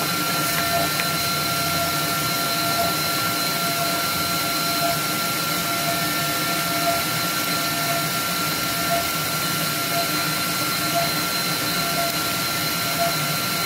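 Vacuum blower holding down the CNC knife cutter's suction bed, running steadily: a constant rushing whine with a few steady high tones and a fainter tone that pulses about every two seconds.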